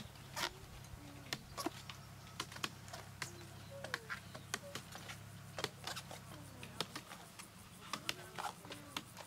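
Irregular sharp clicks and cracks, several a second and uneven in strength, with a few short low chirps gliding between them, over a low hum that stops about seven seconds in.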